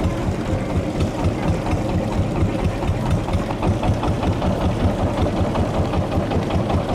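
A motorboat's engine running steadily with a rapid, even thudding.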